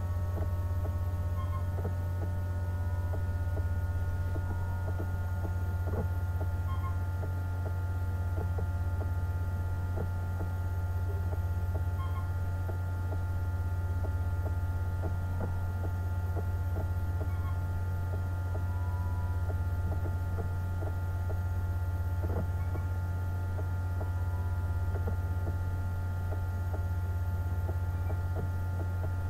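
Steady low electrical and machine hum from the lab equipment running the rotating tank, with several steady higher tones above it. Faint scattered ticks run through it, and a small blip comes about every five seconds.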